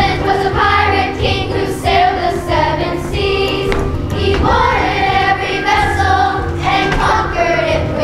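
A children's choir singing a musical number with instrumental accompaniment, a steady low bass line under the voices.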